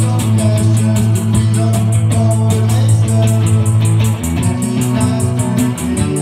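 A live rock band playing, with a Fender Jaguar electric guitar over a held bass note and a fast, even ticking in the high end. The bass note drops lower about four seconds in.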